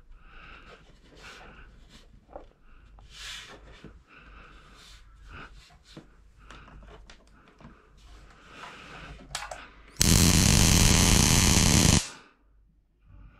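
Small Tesla coil running off a bench power supply with a loud buzz for about two seconds near the end, starting and stopping abruptly. Before it, soft clicks and rustles of the leads being handled.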